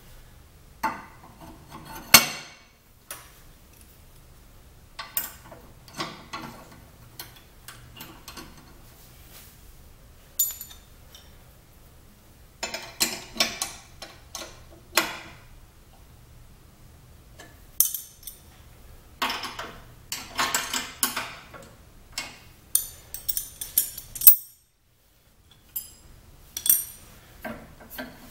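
Steel parts clinking and clanking as a chute block is fitted to a zero-turn mower's steel deck: pins and wire hitch clips going into the brackets, in separate sharp knocks with a few quick rattling runs.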